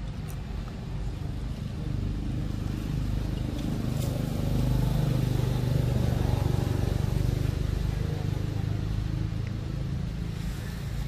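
A motor vehicle's engine running off-screen, a low hum that grows louder toward the middle and then fades.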